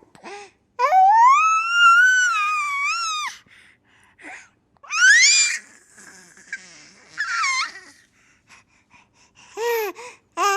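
A baby squealing and babbling happily. It gives one long high squeal that rises and then falls, followed by several shorter squeals with small gasps between them.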